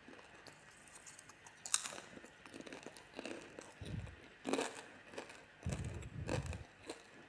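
Popcorn being crunched: a few irregular, sharp crackling crunches with short quiet gaps, the loudest about two seconds in and near the middle, with low thuds around four and six seconds in.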